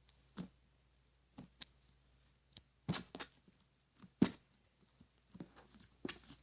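Slime being worked and squished, giving irregular short sticky clicks and wet pops, a few louder snaps around the middle.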